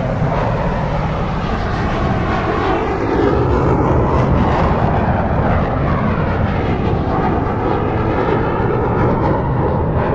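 Motorboat engine running steadily as the boat travels under way, a loud continuous drone with rushing noise over it.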